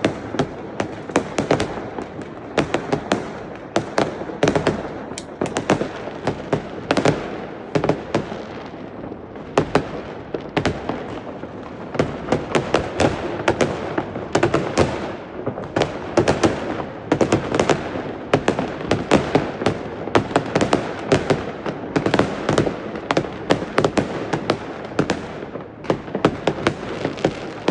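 A dense, unbroken barrage of fireworks and firecrackers going off, many sharp bangs a second overlapping one another, with their echoes filling the gaps between them.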